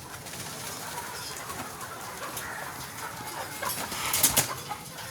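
A flock of Sonali chickens clucking and calling, with a short, loud clatter about four seconds in.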